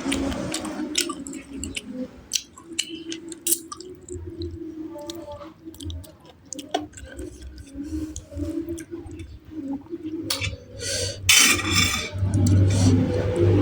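A person eating close to the microphone: wet chewing with many small clicks and smacks of the mouth. About eleven seconds in there is a louder rushing noise for about a second.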